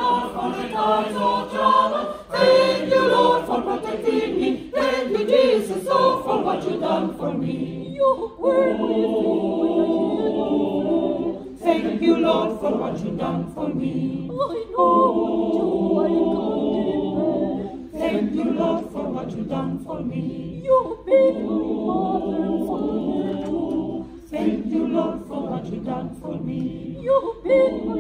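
Mixed choir of women's and men's voices singing unaccompanied, holding sustained chords in phrases of a few seconds each, with short breaths between them.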